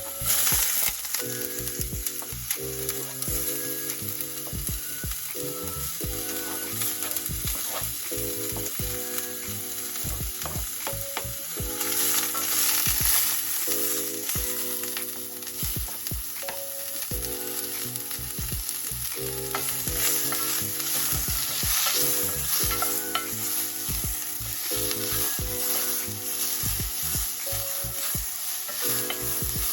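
Food sizzling steadily in a hot pan as it is stirred, with frequent clicks of a utensil against the pan.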